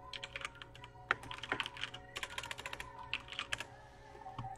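Typing on a computer keyboard: irregular runs of quick key clicks, fairly quiet.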